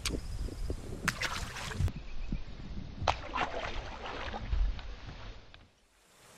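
Wind rumble on the microphone beside a fishing boat, with two short bursts of splashing water, about a second in and about three seconds in.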